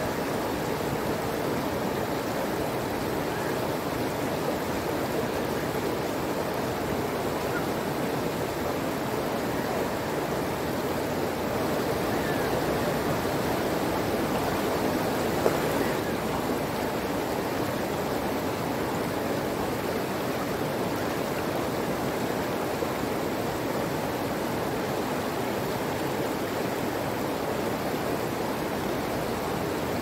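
Running water, a steady even rushing like a stream or small waterfall, with one brief click about halfway through.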